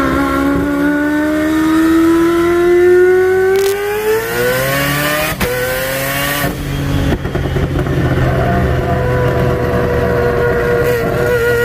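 1993 Mazda RX-7's turbocharged four-rotor peripheral-port rotary engine, heard from inside the cabin, pulling hard under acceleration. Its note climbs steadily for about six seconds, breaks off briefly, then holds at a steady cruise.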